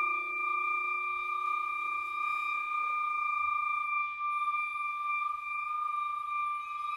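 Contemporary chamber music: a single high, nearly pure note held steady and unchanging, while a fainter lower note dies away over the first few seconds.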